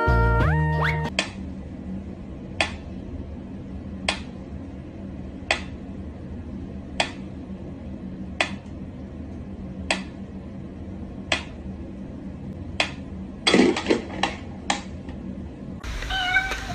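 Mechanical pendulum metronome ticking at a slow, even beat, about one sharp tick every second and a half. Near the end the ticks give way to a quick run of irregular clicks and knocks.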